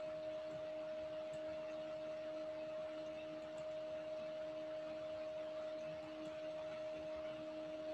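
Steady background hum: a constant mid-pitched tone with fainter lower tones over a light hiss, unchanging throughout.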